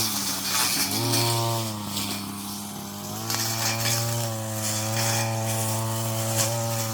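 Brush cutter engine revving up and easing back twice, then held at high revs from about three seconds in.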